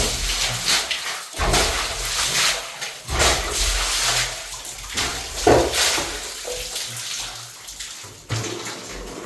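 Water splashing and pouring in irregular surges.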